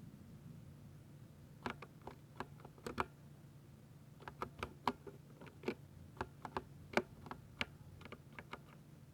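Typing on a Ducky mechanical keyboard with silver linear switches: irregular keystroke clacks, some in quick pairs, starting a moment in after a short pause. A low steady hum lies underneath.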